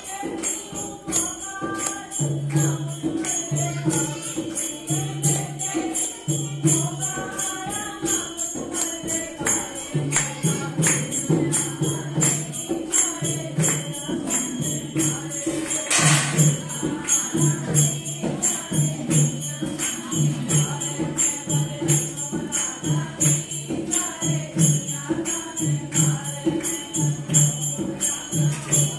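A devotional song: a singing voice over a steady drum beat of about two beats a second, with jingling percussion throughout.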